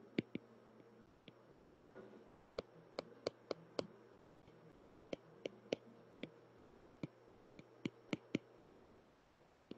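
Stylus tip tapping on a tablet's glass screen while drawing by hand: faint, sharp clicks scattered irregularly, some in quick runs of three to five.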